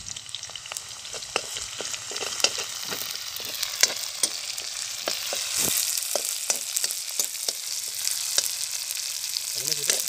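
Sliced onions sizzling in hot oil in a black iron kadai, with a steel spoon scraping and clicking against the pan as they are stirred. The sizzle grows louder about halfway through.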